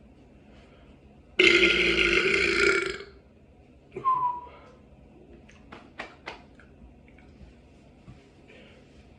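A person belching on purpose: one long, loud burp starting about a second and a half in and lasting about a second and a half. A short second sound with a falling pitch follows about a second later, then a few faint clicks.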